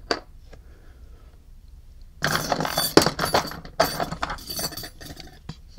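Small metal tools and parts clinking and rattling together, a dense run of clicks and scrapes lasting about three seconds from about two seconds in.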